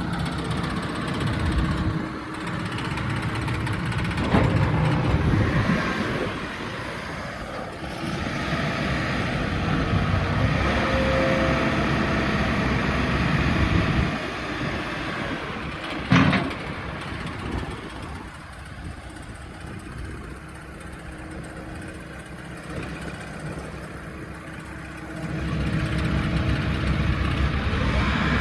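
New Holland B95C loader backhoe's 3.4-litre four-cylinder diesel engine running, its level rising and falling as the machine works, with one sharp clank about sixteen seconds in.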